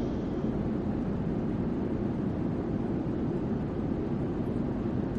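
Steady, even rumble of aircraft noise, strongest in the low range, with no distinct impacts or changes.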